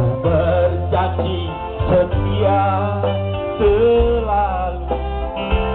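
Live band playing a slow Indonesian pop ballad through stage loudspeakers: steady bass notes under a wavering, sung-style melody line.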